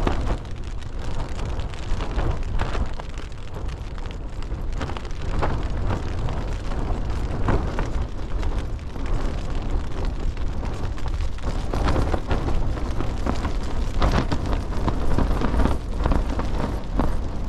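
Strong wind buffeting the microphone and tent, a heavy steady rumble, with light rain tapping on the tent fabric in scattered sharp pats.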